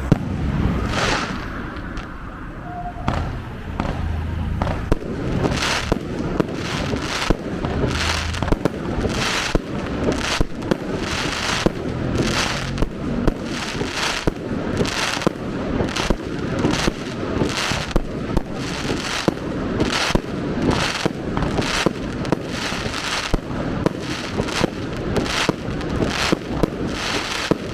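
Fireworks going off in a long barrage: sharp bangs and crackles, sparse for the first few seconds and then coming about two a second.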